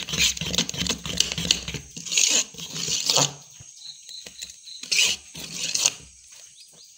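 Thick fermented urad dal and rice batter being stirred and lifted with a spoon in an aluminium bowl: wet squelching and spoon scraping in bursts, dying down about three and a half seconds in and returning briefly around five seconds.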